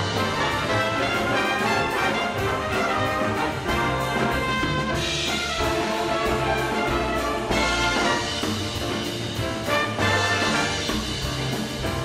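A big band playing a jazz arrangement live: trumpets and trombones with the saxophone section over piano, double bass and drums, with brighter accents from the band about five seconds in and again about seven and a half seconds in.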